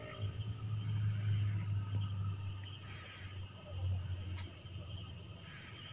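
Crickets trilling steadily, with a low rumble in two stretches of a couple of seconds each.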